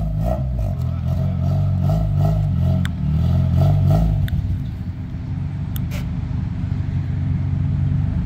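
Honda Accord's engine running. Its speed rises and falls a little for the first few seconds, then settles into a steady idle, with a few light clicks.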